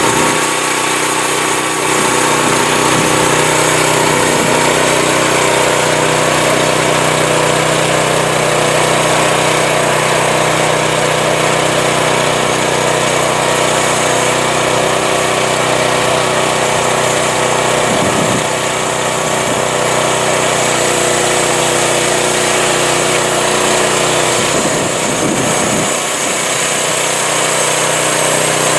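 Engine of a home-built Crosswood Model #28 band sawmill running steadily.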